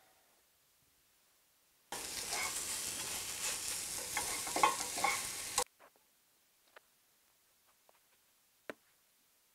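Food sizzling as it fries in a pan on a stove, with small clicks of a utensil stirring in the pan; it starts abruptly about two seconds in and cuts off sharply a few seconds later. Faint small rustles and one sharp click follow near the end.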